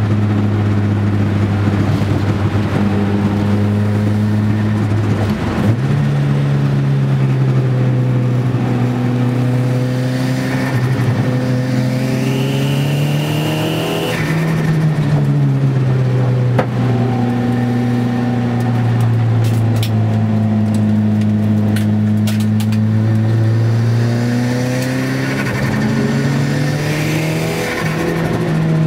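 Nissan Gazelle's turbocharged CA20DET four-cylinder engine heard from inside the cabin under hard driving on track. Its pitch steps up sharply about five seconds in, climbs slowly, drops away after about fourteen seconds and climbs again near the end, with a brief high whine around twelve to fourteen seconds.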